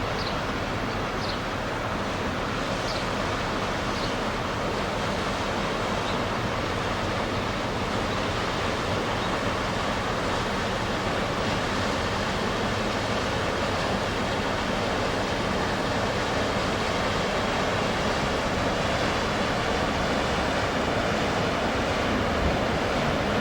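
Ship under way: a steady engine hum under a constant wash of water and wind noise, with a few faint high chirps in the first few seconds.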